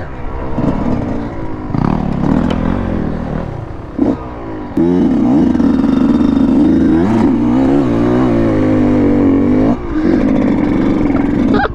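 Dirt bike engine revving hard through a muddy water crossing, its pitch sweeping up and falling back with the throttle and gear changes. It holds high, steady revs from about five seconds in until nearly ten seconds, then drops briefly.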